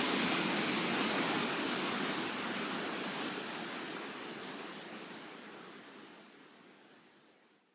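Alcantara river rushing over boulders in fast white water, a steady even rush that fades out gradually over the last few seconds to nothing.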